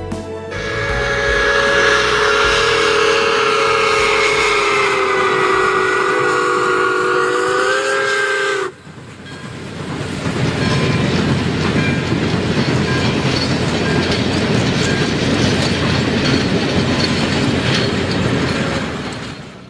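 A steam locomotive's whistle blows one long chord of about eight seconds, sagging a little in pitch and then rising before it cuts off suddenly. A steam train's coaches then roll past with a steady rush of wheel and rail noise.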